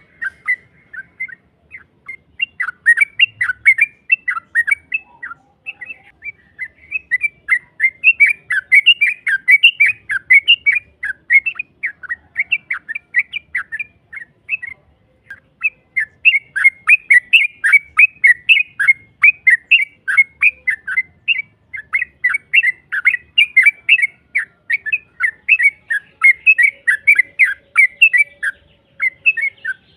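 Yellow-vented bulbul (trucukan) calling in long, rapid chattering runs of short chirping notes, broken by a few brief pauses.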